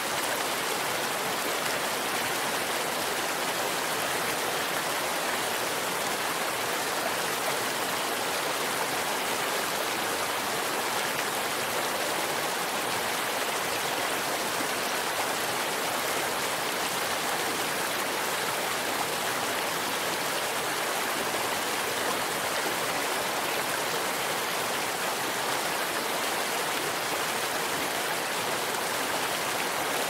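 Stream water rushing over mossy rocks, a steady, even rush of water that never lets up.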